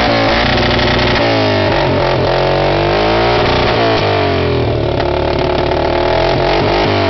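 Yamaha Grizzly 700 ATV's single-cylinder four-stroke engine revved through a Yoshimura aftermarket exhaust while standing still. After about a second of steady running the revs climb, drop back around four seconds in, then climb again and hold high before easing off near the end.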